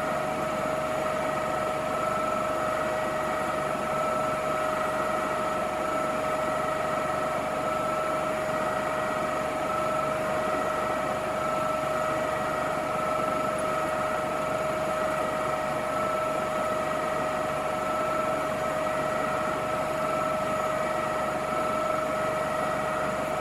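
Steady hum of a small fan motor with a constant high whine over a hiss, unchanging throughout.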